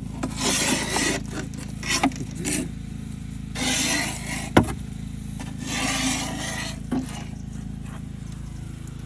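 Wet clay being scraped off the flights of a steel well-drilling auger with a hand scraper: several scraping strokes of about a second each, with one sharp knock about halfway through, over a steady low hum.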